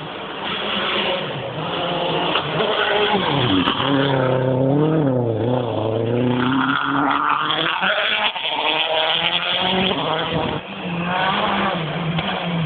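Rally car engine at a forest-stage junction: the note drops as the car slows for the corner a few seconds in, then climbs as it accelerates away, with tyres rushing over the gravel. The engine note rises again near the end.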